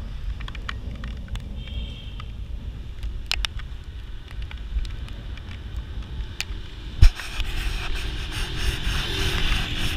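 Riding a bicycle: wind rumbling on the microphone, with scattered clicks and rattles from the bike. A sharp knock comes about seven seconds in, after which a louder rushing noise builds.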